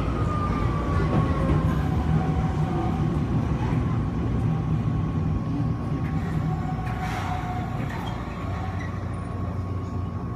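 Nagano Electric Railway electric train running along the track, heard from just behind the driver's cab. A steady low rumble carries a faint thin whine that drops slightly in pitch in the first couple of seconds.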